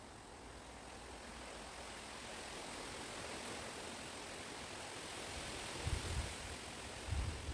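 Wind blowing through a chestnut wood, a steady rushing that swells slowly, with low gusts buffeting the microphone about six seconds in and again near the end.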